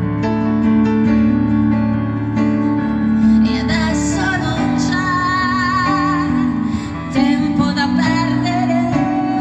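A woman singing live into a microphone over instrumental accompaniment, holding one long note with vibrato about halfway through.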